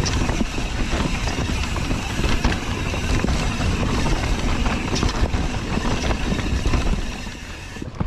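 Wind buffeting the camera microphone and mountain bike tyres rolling over a dirt trail at speed, with frequent knocks and rattles from the bike over bumps. It eases a little near the end.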